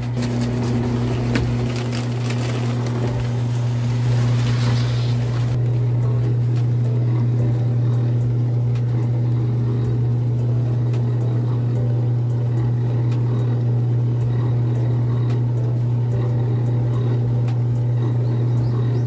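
Steady low drone of a car heard from inside the cabin, engine and road noise, with a hiss over it that stops suddenly about five seconds in.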